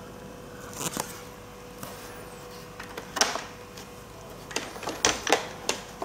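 Hard plastic parts of a robot vacuum and its water tank being handled: a click about a second in, another around three seconds, then several sharp clicks and knocks in quick succession near the end.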